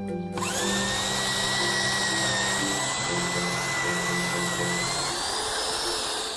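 Angle grinder cutting through a metal bar: a steady, high, hissing whine starts about half a second in. Its pitch rises slightly near the end, then it stops.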